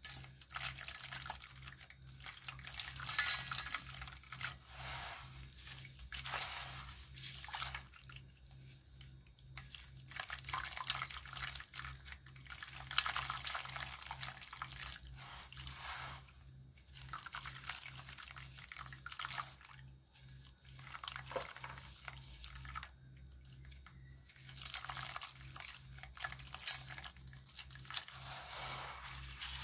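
Soaked white lime stones crushed and crumbled by hand in a basin of water: wet squishing, crunching and splashing in repeated bouts a second or two long, with short pauses between. A faint steady low hum runs underneath.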